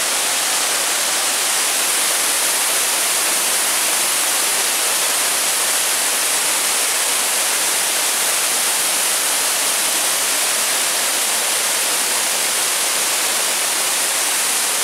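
A waterfall cascading down rock ledges: a steady, unbroken rush of falling water.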